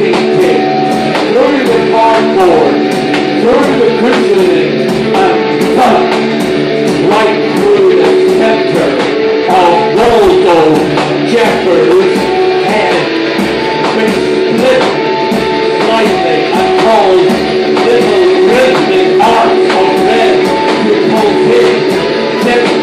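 Live rock band with electric guitars and drums playing a loud, continuous instrumental groove, with held guitar notes and pitch bends over steady drum hits.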